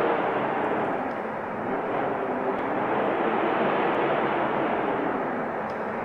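Snowstorm wind blowing in a steady rush that eases slightly about a second and a half in, then swells back.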